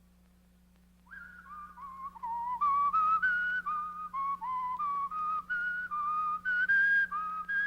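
After about a second of near silence, a whistled tune starts. It is made of short notes, each sliding up slightly into pitch, about three a second, and it grows louder.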